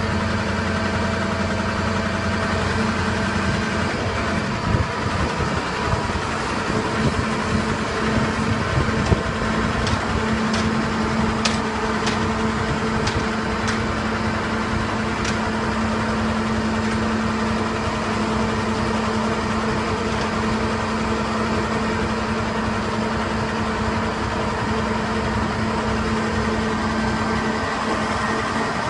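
Skip loader lorry's diesel engine running steadily, working the hydraulic lift arms that raise a skip. A few sharp clicks and knocks come between about ten and fifteen seconds in.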